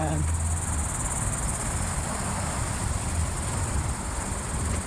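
Steady high-pitched chorus of insects, crickets or similar, droning without a break, over a low rumble.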